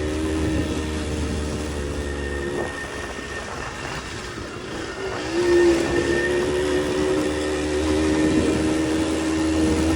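1966 Harley-Davidson M50's small two-stroke single-cylinder engine running as the bike is ridden. The engine note dips slightly, then rises and gets louder a little past halfway as the throttle is opened, and holds steady after that.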